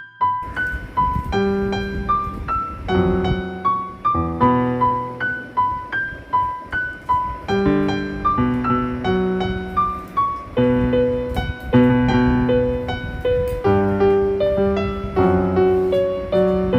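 Background music: a piano or electric piano playing a steady melody of struck notes.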